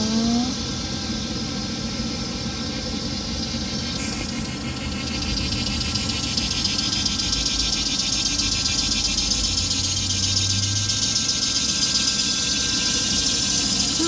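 A motor running steadily: a constant hum with several steady tones, getting a little louder and brighter about four seconds in.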